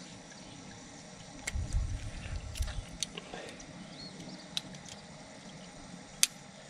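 Squirrel hide being pulled down off the carcass with pliers: quiet wet peeling, with a few light clicks, the sharpest about six seconds in. A brief low rumble about two seconds in.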